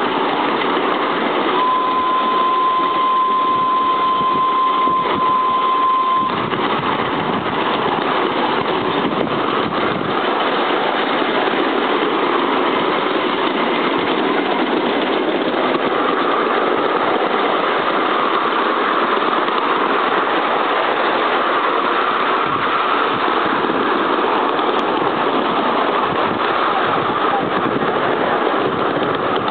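A 7¼ inch gauge 2-4-2 tender steam locomotive running steadily under way, its chuffing mixed with the carriages' wheels running on the rails, heard from the front carriage. A single steady high tone sounds for about four seconds, starting about two seconds in.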